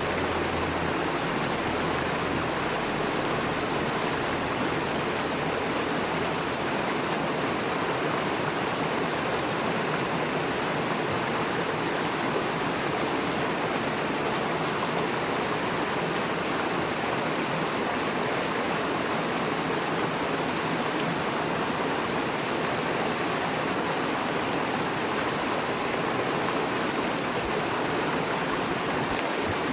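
Fast-flowing river rushing over and between rocks: a steady, unbroken rush of water.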